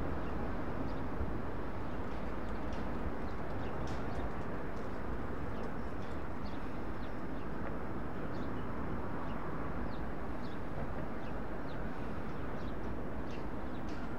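Small birds chirping in short, scattered calls over the steady sound of a SEPTA Silverliner IV electric commuter train approaching.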